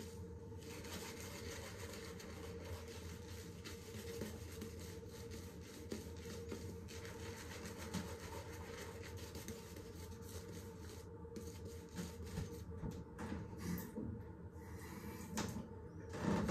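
Damascus-steel straight razor scraping through a day's stubble under lather: a faint, fine, crackling rasp of blade strokes. A few louder brief knocks or rustles come near the end.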